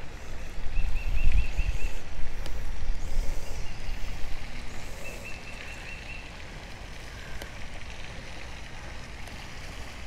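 Shallow creek water swirling around a wading angler's hand and legs as he lets a fish go, with a low rumble on the microphone for the first few seconds, then a quieter, steady running-water sound. A faint high trill comes twice in the background.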